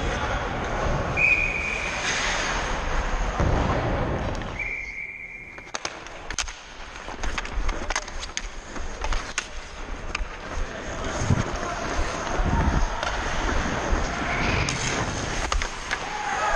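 Ice hockey play: skates scraping across the ice with wind rushing over the helmet camera's microphone, then a run of sharp clicks and knocks from sticks and puck on the ice.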